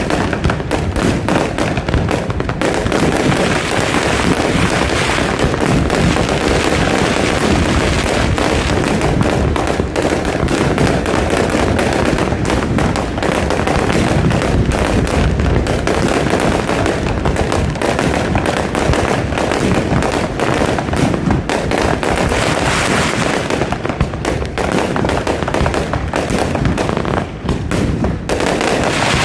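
Fireworks display: a dense, unbroken run of rapid bangs and crackling, with music playing alongside.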